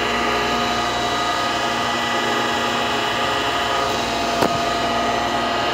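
Steady hum of running machinery made of several fixed tones, with one sharp click about four and a half seconds in.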